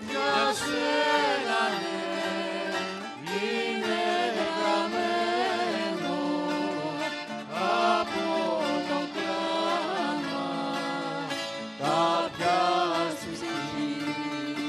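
Live rebetiko music: a band of plucked string instruments playing, with a singing voice carrying melodic phrases that glide between notes.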